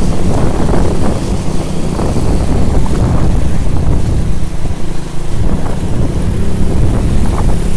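Motorbike riding through floodwater: the engine running under a loud, continuous churning and splashing of water, with wind rumbling on the microphone.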